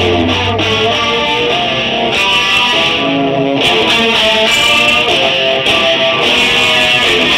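Two electric guitars playing a riff live through amplifiers, loud, in an instrumental passage with no singing.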